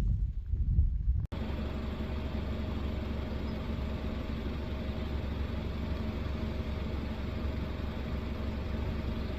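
An engine running steadily at a constant speed, a low even drone; it begins abruptly about a second in, after a short stretch of low rumbling noise.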